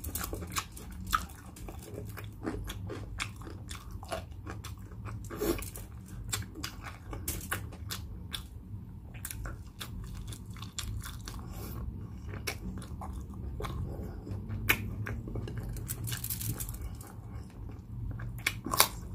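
Close-miked chewing and biting of crispy pata, deep-fried pork knuckle, with many sharp crunches and wet mouth clicks.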